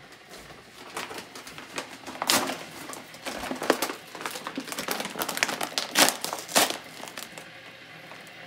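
Brown paper pasta bag crinkling and rustling in irregular sharp crackles as it is unfolded and opened by hand.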